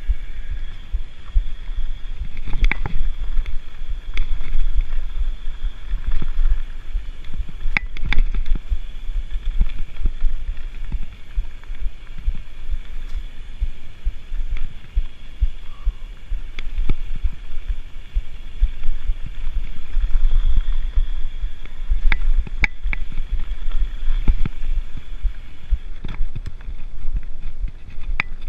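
Mountain bike riding down dirt singletrack: a steady low rumble of tyres on dirt and wind buffeting the microphone, with sharp clicks and rattles as the bike hits rocks and roots.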